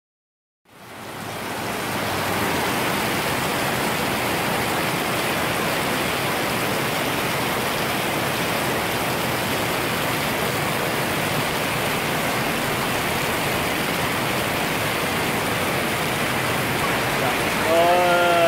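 Heavy rain pouring down in a steady downpour, fading in after about half a second of silence.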